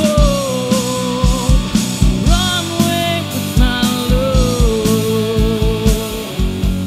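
A live rock band playing: a woman singing long held notes over electric guitar, electric bass and a drum kit keeping a steady beat.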